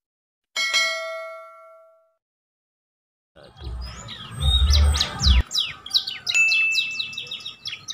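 A single bell-like ding, added as an end-card sound effect with the notification-bell animation, rings out and dies away over about a second and a half. After a pause, birds chirp quickly and continuously, with a low rumble under the first two seconds of the birdsong.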